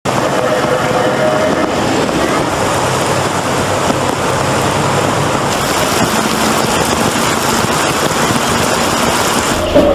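Torrential rain pouring down, a loud steady rushing hiss, with a brief louder knock near the end.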